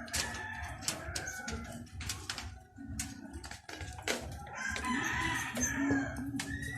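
Birds calling, with some long held calls, over a run of sharp clicks and knocks.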